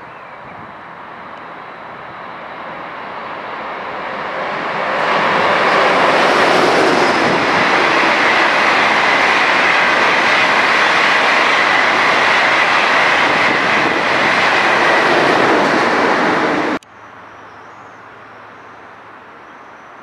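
ICE high-speed electric train passing along the track below: wheel and rail noise grows over about five seconds into a loud, steady rush with a high whine, then cuts off abruptly near the end, leaving a much quieter background.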